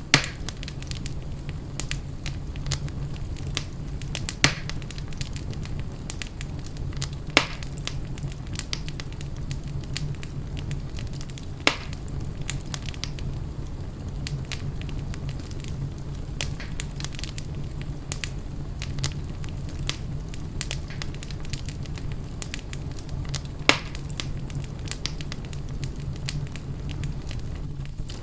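Wood fire burning in a fireplace: a steady low rumble of flames with continuous fine crackling, and about five louder sharp pops scattered through.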